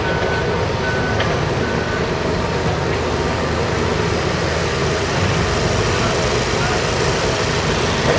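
Heavy construction machinery running steadily at a track-reconstruction site, a dense engine rumble. A reversing alarm beeps three times in the first two seconds.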